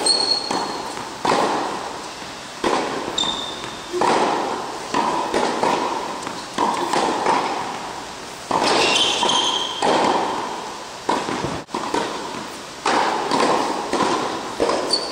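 A tennis ball struck by racket and bouncing on an indoor hard court, the hits coming about every one to one and a half seconds, each followed by a long echo in the hall. A few short high squeaks, likely tennis shoes on the court surface, come between hits.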